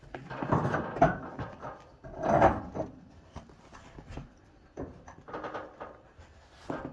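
Irregular knocks and scrapes of a hammer being wedged under a dryer drum to prop it up, with the loudest clunks about a second in and again around two and a half seconds in.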